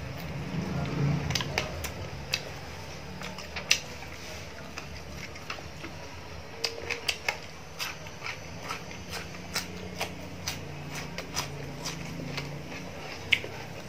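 A person chewing fried small fish and lettuce with the mouth close to the microphone: irregular wet mouth clicks and smacks, many in quick succession, over a low steady hum.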